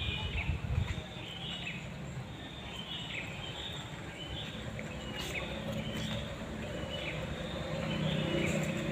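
Birds chirping in short repeated calls over a steady low outdoor rumble.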